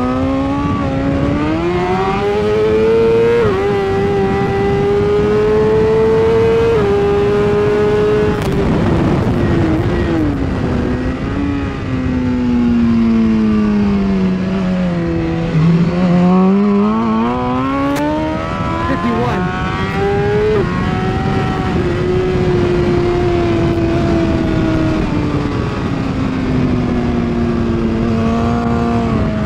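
2016 BMW S1000RR's inline-four engine at race pace: revs climb with a couple of upshift steps early on, slide down to a low about halfway as the bike slows, climb again to another shift about two-thirds through, then ease off toward the end.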